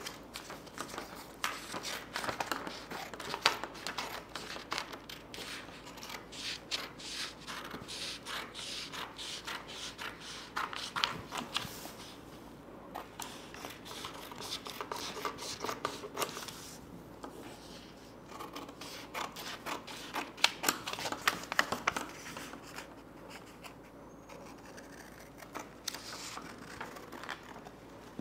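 Scissors cutting out a paper blouse pattern: runs of quick snips with a few short pauses.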